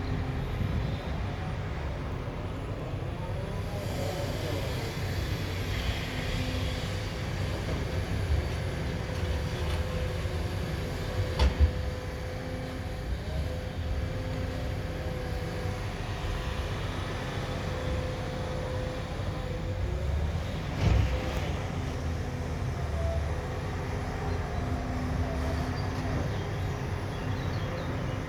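Heavy diesel earthmoving machinery running steadily with a low rumble and a steady engine hum, broken by a few sharp metallic knocks.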